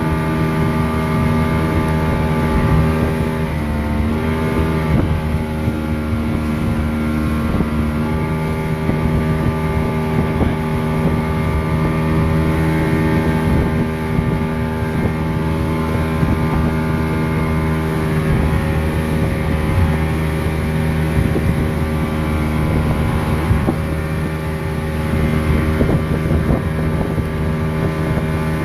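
Motorboat engine running steadily underway, its note dipping briefly about four seconds in and then recovering, with wind buffeting the microphone.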